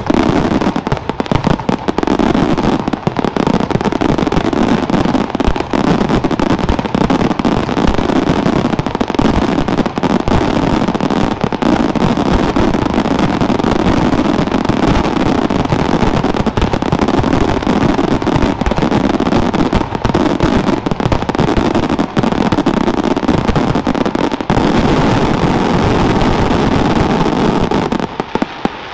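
A dense finale barrage of aerial firework shells bursting in rapid, unbroken succession. The bursts stop abruptly about a second before the end, leaving a fading echo.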